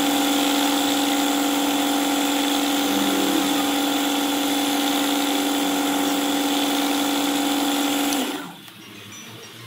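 Small electric power tool motor running steadily with a strong, even hum, used in machining a model steam engine's cylinder and piston; it stops about eight seconds in.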